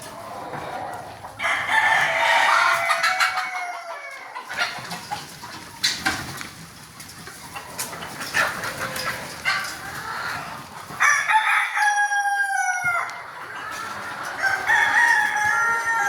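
A flock of desi chickens clucking, with roosters crowing: long calls that fall in pitch at the end, heard about three times.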